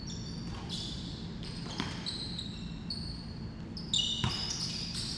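A basketball bouncing on an indoor court floor, a few sharp thuds with the loudest about four seconds in, amid short high squeaks of sneakers on the court.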